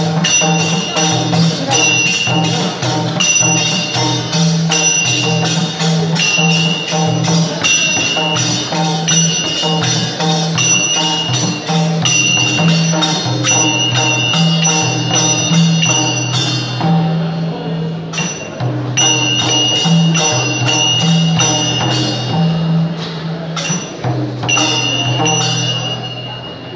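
Traditional Newar drum-and-cymbal music: a two-headed barrel drum played in a steady rhythm with small hand cymbals struck on the beat, their ringing tone repeating. The cymbals thin out about two-thirds of the way through and the music fades near the end.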